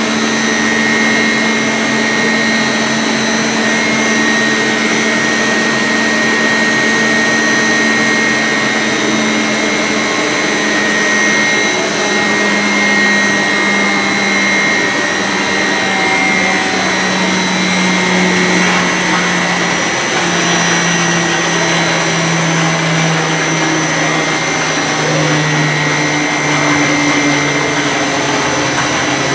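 Xylem centrifugal pumps and their electric motors running in the pump room: a steady mechanical whine with several held high tones over a low hum.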